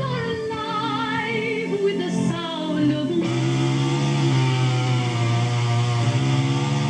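Music with a singing voice in wavering vibrato that gives way about three seconds in to steadier, denser backing over a constant low hum.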